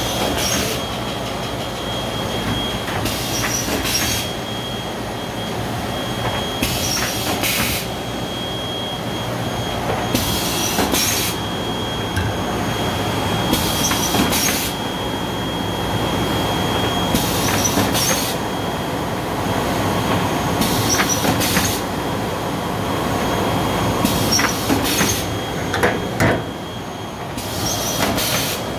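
Seedling-tray washing machine running steadily with a mechanical rumble. Short hissing bursts come in pairs about every three and a half seconds, and a thin high tone runs through the first half.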